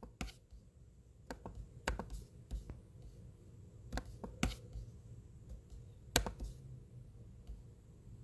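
Computer mouse clicking: about a dozen faint, irregular clicks and taps, the sharpest about four and a half and six seconds in, over a low steady hum.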